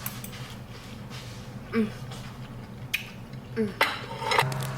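Cutlery clinking against a plate during a meal: a few scattered clicks, then a quick clatter about four seconds in.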